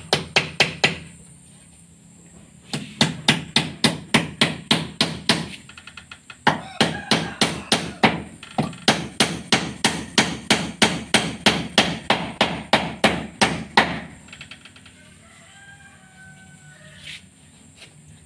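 Hammer striking a wooden board overhead, nailing up a new plank on a wooden wall, in quick runs of blows about four or five a second. There are two short pauses, and the hammering stops about 14 seconds in.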